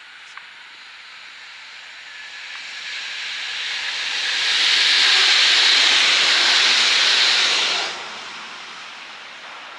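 EN57 electric multiple unit passing at speed. The rushing noise of the train builds as it approaches, stays loud for about three seconds, and falls away sharply about eight seconds in as the last car goes by.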